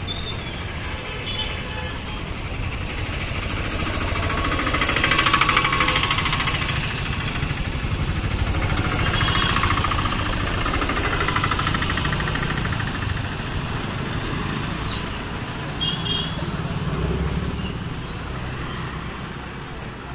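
Busy street traffic: motor vehicles running past close by over a steady background of engine noise, loudest about five seconds in and again around ten seconds.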